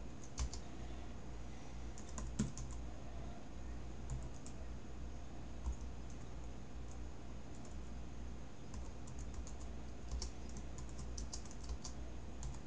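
Computer keyboard being typed on in short bursts of key clicks, the longest run near the end, over a steady low hum.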